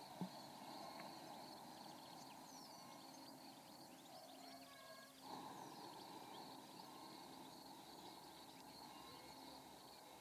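Near silence: faint outdoor background ambience with a steady high insect-like hum, a few faint bird chirps, and one soft click just after the start.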